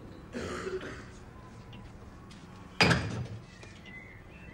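A single sharp bang about three seconds in, dying away within about half a second.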